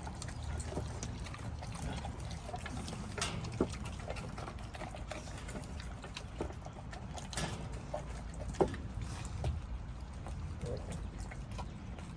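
American Bully dog eating raw meat: irregular wet chewing and licking with scattered clicks, and two sharper clicks about three and a half and eight and a half seconds in.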